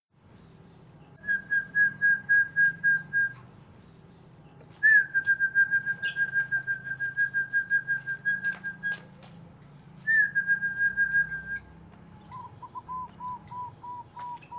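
Birds calling: runs of quick, evenly repeated whistled notes, the longest lasting about four seconds, with sharp high chirps joining in over the second half and a lower run of notes near the end.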